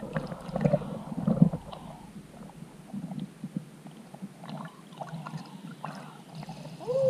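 Muffled underwater sound of a microphone held beneath a creek's surface: water sloshing and bubbling around a hand and a largemouth bass as the fish is released, with scattered dull knocks. A short pitched sound bends up and down near the end.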